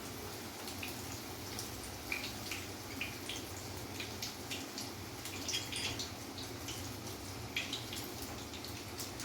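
Batter-coated chicken pieces frying in hot oil over a low gas flame: a steady sizzle with scattered crackles and pops.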